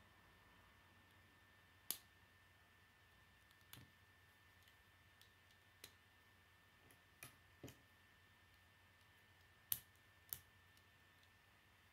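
Plastic Lego bricks clicking as pieces are pressed onto a small model car: about seven sharp, separate clicks, the two loudest near the end.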